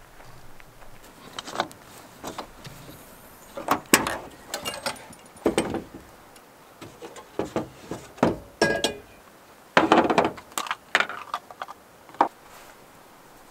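Camping cookware and gear being handled on a pickup's tailgate: irregular clunks, knocks and clinks, with a brief metallic ring about two-thirds of the way through, as a camp stove, fuel canister and skillet are set out.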